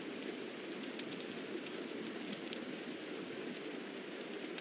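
Steady hiss with a few faint scattered clicks: the background noise of the recording, with no speech.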